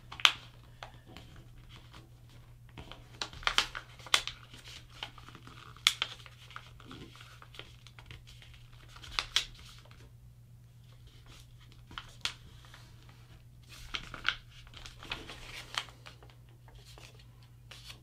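A sheet of paper being folded and creased by hand into a paper airplane's wing: scattered sharp crinkles and rustles as it is flipped, folded and pressed flat, over a faint steady low hum.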